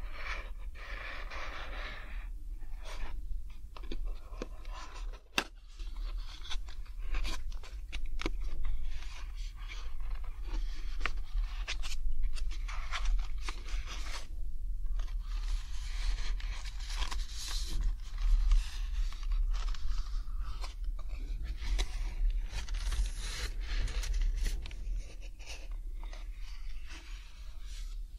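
Cardboard box of alcohol prep pads being handled and opened close to the microphone: irregular crinkling, scraping and rustling with many sharp little clicks and taps. A steady low hum runs underneath.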